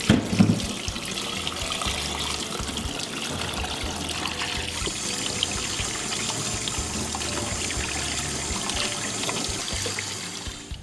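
Kitchen tap running into a pot in a stainless steel sink, water splashing as blanched oxtail pieces are rinsed clean of scum by hand.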